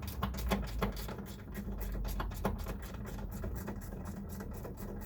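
Ratchet wrench clicking rapidly and steadily, turning out the 12 mm hinge bolts of a car's rear door.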